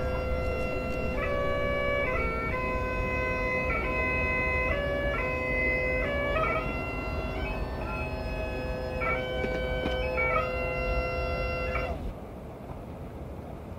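Highland bagpipes playing a tune over their steady drones; the piping stops about twelve seconds in.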